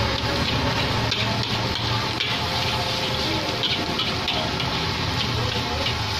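Fried rice being stir-fried in a steel wok over a gas burner: a steady sizzle and hiss, with repeated scrapes and taps of the metal spatula against the wok.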